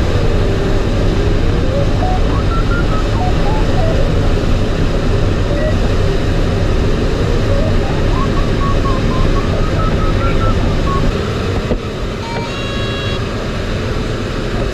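Steady airflow rush and rumble in a glider cockpit, with the electronic variometer's tone sliding slowly up and down as the lift changes. About twelve seconds in there is a click, the rush gets quieter, and a short electronic beep follows.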